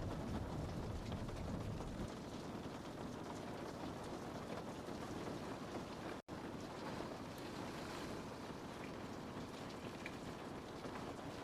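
Steady rain on a window: an even hiss with scattered drop ticks. A low rumble underneath eases about two seconds in, and the sound cuts out for an instant about six seconds in.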